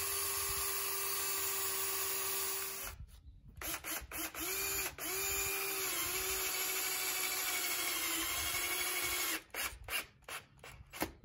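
DeWalt cordless drill/driver running in several trigger pulls while driving screws through steel flashing: a steady whine for nearly three seconds, a pause, two short bursts, then a longer run whose pitch sags slightly near the end. A few sharp clicks follow.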